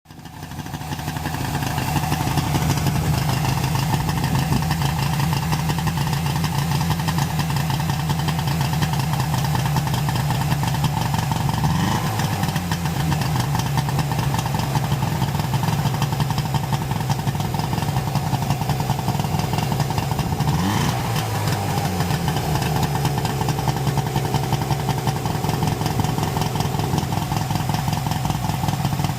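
Autobianchi Bianchina's small air-cooled two-cylinder engine idling steadily, with two brief throttle blips, about twelve and twenty-one seconds in.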